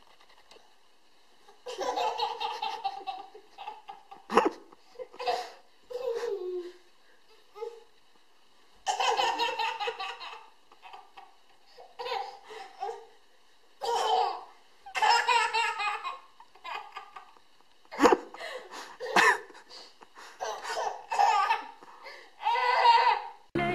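Toddler laughing in repeated belly-laugh bouts, starting about two seconds in, with a few sharp clicks among them. Music cuts in at the very end.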